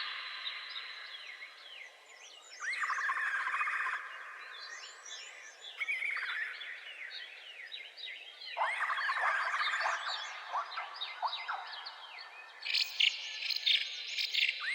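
Wild birds chirping and calling in bursts every few seconds, with a steady high thin tone underneath.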